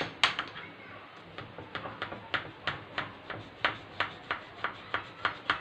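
A knife cutting through a chilled biscuit-and-cream cake in its dish, with sharp clicks of the blade against the dish at a steady rate of about three a second.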